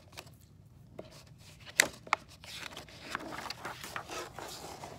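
A picture book's paper page being turned by hand: two sharp snaps about two seconds in, then soft paper rustling and rubbing as the page slides over.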